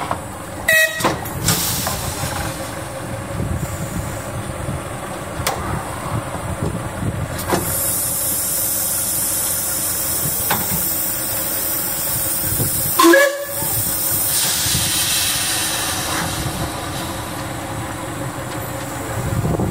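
Narrow-gauge steam locomotive running, with a low rumble throughout and a loud hiss of steam from about eight seconds in for several seconds. Two sudden loud knocks come about a second in and again about thirteen seconds in.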